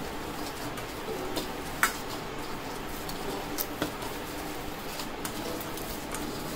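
Hands kneading soft cashew dough in a stainless steel bowl, the bowl shifting and clinking against the hands and counter, with a few sharp metallic clinks, the loudest a little under two seconds in.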